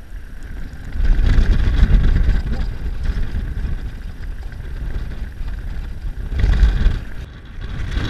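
Strong wind buffeting the microphone in gusts: a low rumble that swells about a second in and again near the end.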